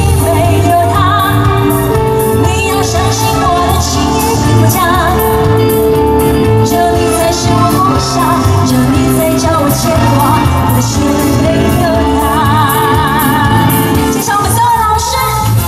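A woman singing a pop song into a microphone over amplified band accompaniment with a steady drum beat; she holds long notes with vibrato.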